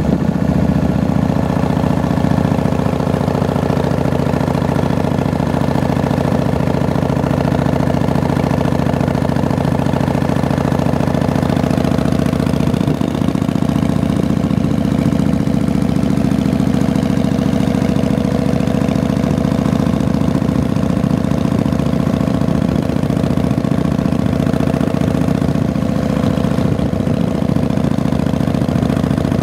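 Motorcycle engine running steadily as the bike rides along a winding road. Its note shifts slightly a little before halfway and again near the end.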